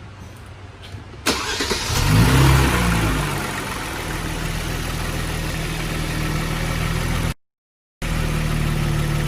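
Kia Stinger GT's 3.3-litre twin-turbo V6, with a freshly fitted Injen cold air intake, starting about a second in. Its revs flare up briefly, then it settles into a steady idle. The audio drops out for about half a second near the end.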